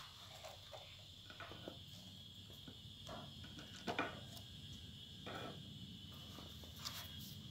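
Soft, scattered clicks and taps of plastic toy track pieces being shifted on a wooden ramp, the most distinct about four seconds in, over a faint steady high-pitched hiss.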